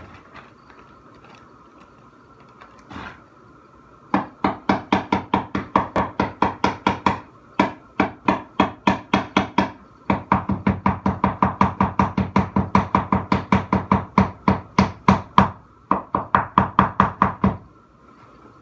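A stick of chalk knocked rapidly and repeatedly against a plastic Tupperware container to break off chalk shavings for colouring slime. The knocks come about five a second in long runs with brief pauses, starting about four seconds in.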